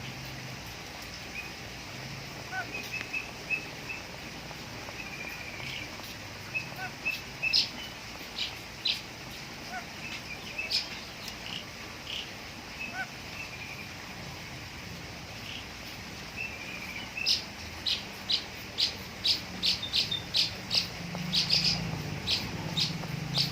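A lory chirping: scattered short, sharp calls, then a run of about two calls a second near the end.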